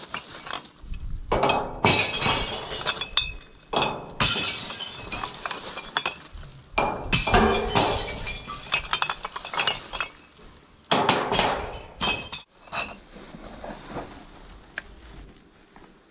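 Waste glass dropped piece after piece through the hatch of a glass recycling bank, clinking and smashing against the glass already inside. The crashes come in several bouts and die away over the last few seconds.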